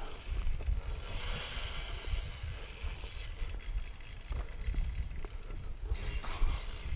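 Daiwa Fuego fishing reel being cranked against a hooked striped bass, a fast even run of faint ticks from about a second in until near the end. A low rumble of wind on the microphone runs underneath.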